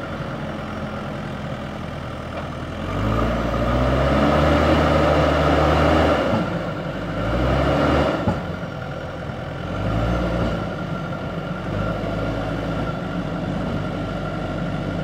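JCB backhoe loader's diesel engine running under load with a heavy concrete pipe slung from its front bucket, revving up three times, about three, six and a half and ten seconds in, and settling back between; it is loudest around the first rev.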